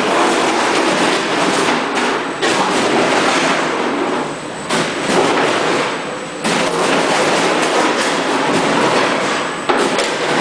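Frozen chicken pieces clattering through a Yamato multihead weigher: a dense, continuous rattle of many small impacts, easing briefly about four and a half and six seconds in.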